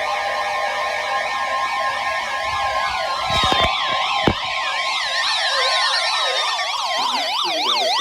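Weather radio's steady warning alarm tone near 1 kHz, which cuts off about seven seconds in, under several electronic siren tones sweeping rapidly up and down and long falling tones. Two brief low thumps come around the middle.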